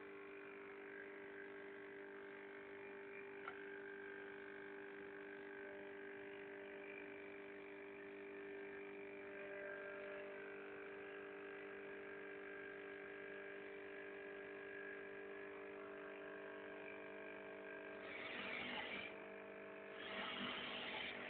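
Steady electrical hum made of several fixed tones, with two brief bursts of noise near the end, the second a little louder.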